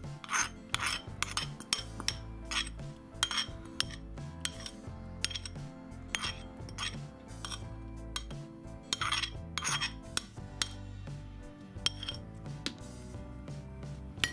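Metal spoon scraping and tapping against a ceramic bowl as yogurt is scraped out into a plastic jug: many sharp, irregular clinks, one or two a second. Background music plays under it.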